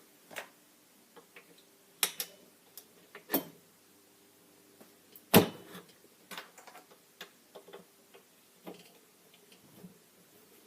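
Scattered sharp metal clicks and taps of small tools and rifle parts being handled on a workbench, the loudest about five seconds in, followed by a run of lighter ticks.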